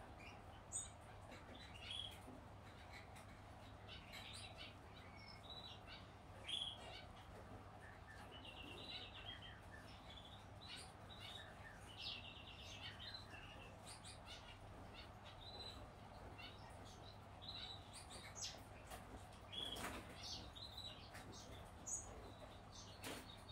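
Newly hatched Gouldian finch chicks giving faint, high begging chirps in short runs, some as quick buzzy trains, as they gape for food. A couple of sharp handling knocks come near the end.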